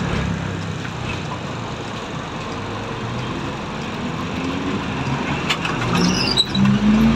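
City bus engine running, its pitch rising and growing louder over the last few seconds as the bus accelerates. A few sharp clicks and a brief high squeak come near the end.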